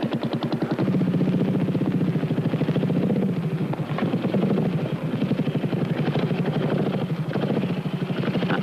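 Trials motorcycle engine running at low revs with a rapid, even exhaust beat as the bike is ridden slowly over rocks.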